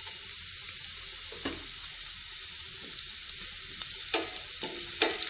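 Chopped garlic sizzling in hot olive oil in a large pan, a steady hiss. A utensil stirring it knocks against the pan once about a second and a half in and a few times near the end.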